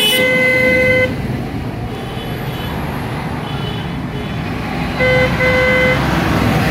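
Tractor horns sounding as tractors drive past: a long blast of about a second at the start, a fainter toot in the middle, then a short and a longer blast about five seconds in. Under the horns the tractor engines rumble steadily, swelling near the end as one passes close by.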